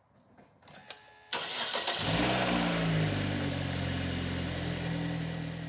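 2012 Chevrolet Sonic four-cylinder engine cranked and started: the starter turns it briefly, it catches about two seconds in, then it settles into a steady idle. The severed fuel injector connector has just been spliced back in, a repair the owner confirms cures the misfire.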